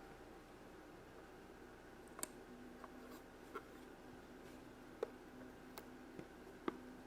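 Faint, scattered light clicks and taps of small plastic toy pieces being handled, about seven over several seconds, over a low steady hum.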